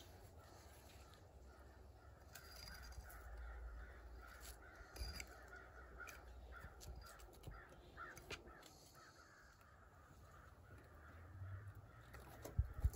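Crows cawing repeatedly in a series, with scattered light knocks of a hatchet splitting kindling on a wooden stump and a couple of louder thumps near the end.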